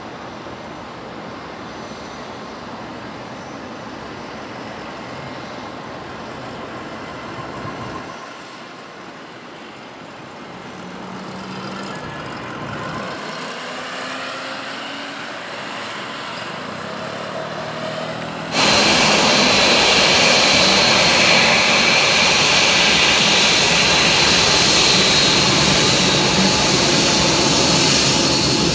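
Steady background noise, then about two-thirds of the way in, a sudden loud jet whine: the GE engines of a Boeing 787 Dreamliner taxiing, a high steady tone over an even hiss.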